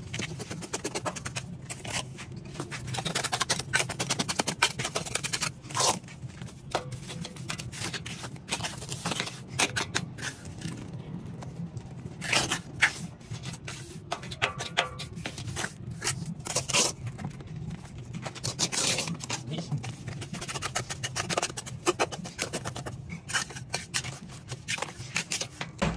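Mason's trowel scraping and dabbing wet cement mortar, packing it around the base of a steel post: many short, irregular scrapes and taps over a steady low hum.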